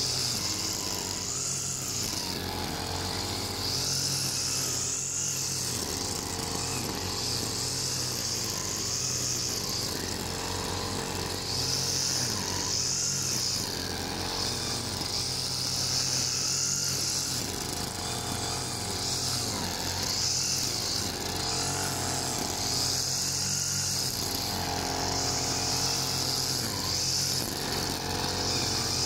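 Backpack petrol brush cutter running steadily as its nylon-line trimmer head cuts grass, its high whine swelling and easing every few seconds.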